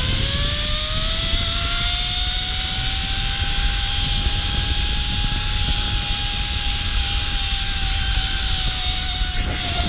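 Zip line trolley running along the cable: a whine that rises in pitch at first, then holds steady, with a heavy rush of wind on the microphone beneath it.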